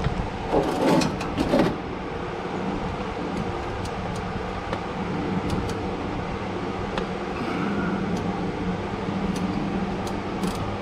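A steady low mechanical hum, with a short clatter of knocks about a second in and scattered sharp clicks through the rest.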